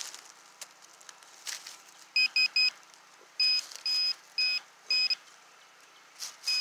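Handheld pinpointer metal detector beeping: three quick beeps, then four longer beeps about two a second, the probe signalling a metal target under the leaf litter.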